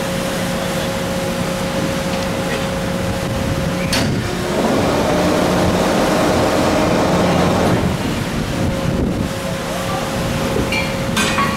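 Steady engine and machinery hum with a constant tone, mixed with wind on the microphone and the sea washing against the hull. A single knock comes about four seconds in, and the rush of water swells louder from then until about eight seconds in.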